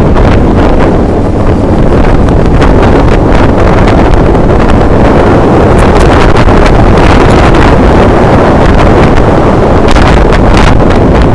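Heavy wind buffeting on the microphone of an action camera mounted low on a moving vehicle, over a steady deep rumble of road and tyre noise. The sound is loud and unbroken, with short crackles of buffeting scattered through it.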